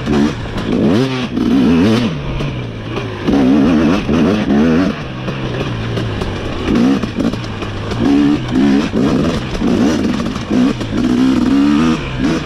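KTM 250 SX two-stroke dirt bike engine revving hard, its pitch climbing and dropping over and over as the throttle is opened and closed while riding.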